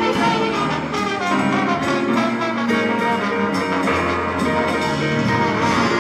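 Live jazz band playing, with brass instruments to the fore.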